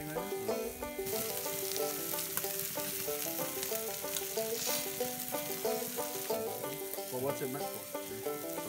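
Chicken drumsticks and steaks sizzling on a gas grill, the sizzle louder from about a second in. Background music plays throughout.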